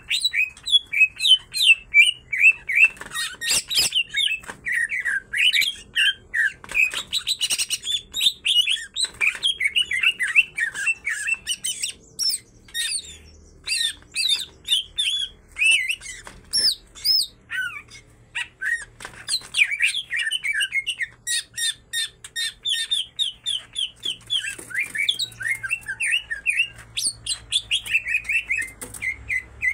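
Green leafbirds (cucak ijo) singing a fast, continuous stream of chirps and warbled whistles, with brief pauses about 12 and 18 seconds in.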